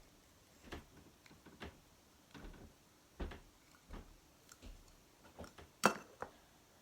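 Small plastic slime container being handled and opened: about a dozen irregular clicks and taps of the lid and tub, with one sharper snap near the end.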